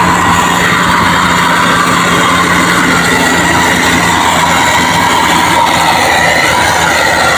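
Indonesian bus 'telolet' Basuri musical air horn sounding several high tones together, held steadily, over the bus's running diesel engine.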